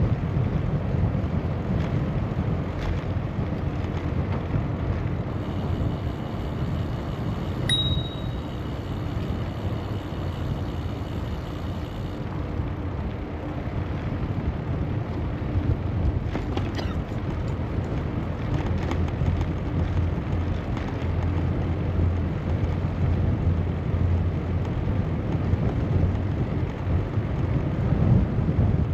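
Steady low rumble of wind and tyre noise while riding a bicycle, with one brief high ding about eight seconds in.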